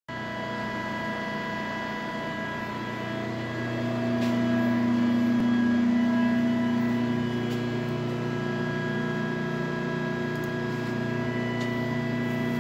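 Cincinnati 175-ton Proform CNC hydraulic press brake's hydraulic pump and motor running steadily, a constant hum with a whine of several steady tones. It grows somewhat louder about four seconds in.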